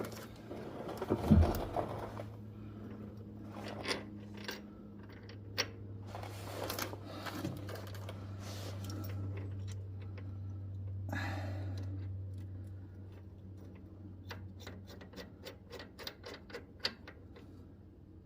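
Scattered metallic clicks and knocks of hand tools working at the truck's rear shock mount while the shock is pulled back to line up its bolt. There is a heavier knock about a second in and a quicker run of clicks near the end, over a steady low hum.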